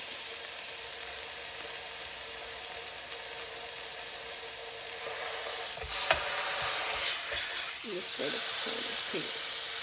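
Beef roast sizzling as it sears in an electric countertop skillet, a steady hiss from the skillet, which has just been switched off and is still hot. About six seconds in comes a sudden louder burst of sizzle with a knock as the roast is turned onto another side with tongs.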